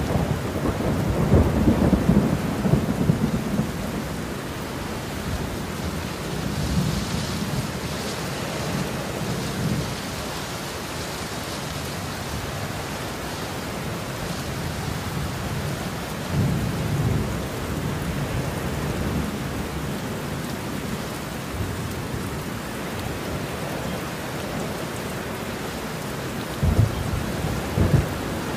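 Heavy rain falling steadily with thunder: a long rolling rumble in the first few seconds, softer rumbles through the middle, and a few sharper claps near the end.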